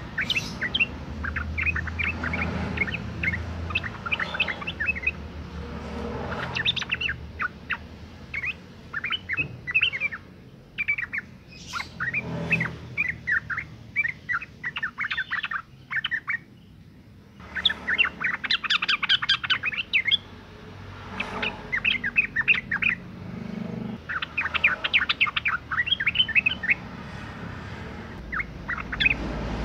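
Female yellow-vented bulbul (trucukan) calling in repeated bouts of rapid, chattering notes, each bout a few seconds long with short pauses between.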